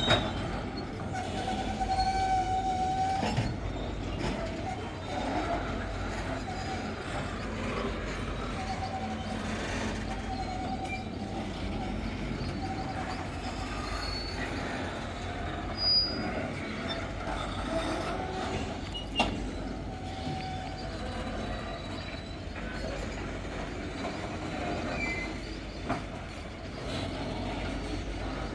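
Metre-gauge freight train rolling past, its wagon wheels squealing in short high tones that come and go over a steady rumble, with a few sharp knocks.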